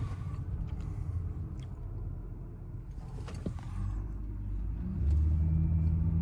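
Car engine and road rumble heard from inside the moving vehicle as it is driven. A steady low engine hum comes in and grows louder about five seconds in.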